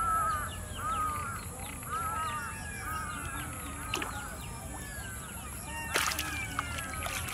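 Animals calling: a pitched call repeated about once a second that fades out after about two seconds, over many short calls sliding downward in pitch. A couple of sharp clicks come from about four seconds in.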